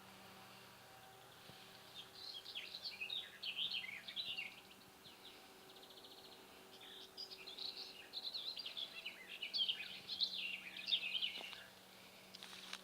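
A songbird singing two long, rapid twittering phrases of quick high chirps, the first about two seconds in and the second about seven seconds in, over a faint steady low hum.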